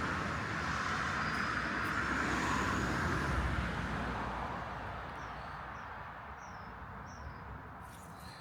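A road vehicle passing, its tyre and engine noise swelling to a peak about three seconds in and then fading away. A few short bird chirps come through near the end as it dies down.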